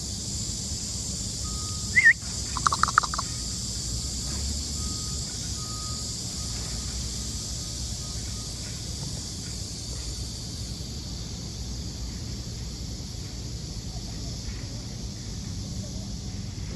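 A brief high-pitched animal call about two seconds in: one rising note, then a quick run of short yips or chirps, over a steady outdoor hiss.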